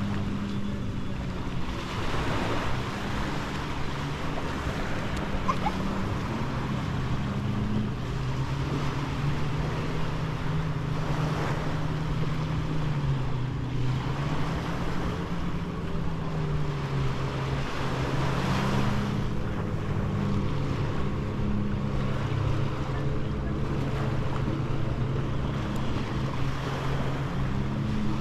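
Surf washing onto a beach with sea wind buffeting the microphone, swelling every few seconds. Under it runs a low engine drone whose pitch drifts slowly up and down.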